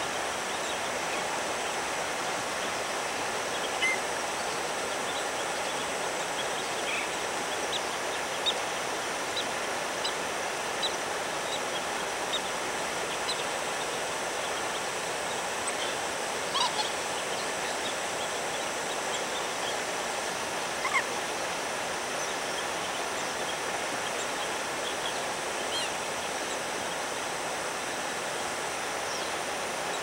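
Steady outdoor wetland background hiss with a faint high steady whine, dotted with scattered short chirps and ticks; the louder ones come about four, eight, seventeen and twenty-one seconds in.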